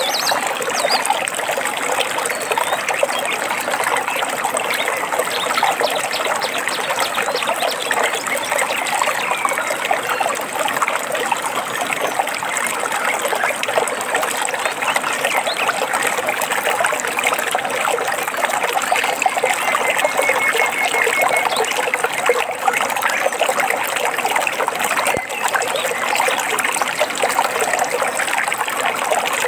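Shallow stream trickling and babbling steadily over stones, with a short bird call about two-thirds of the way through.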